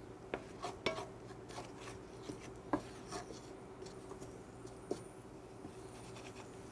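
Wooden spoon scraping and knocking against a stainless steel skillet while stirring minced garlic in oil. The knocks come irregularly, a handful over the stretch, over a faint steady hum.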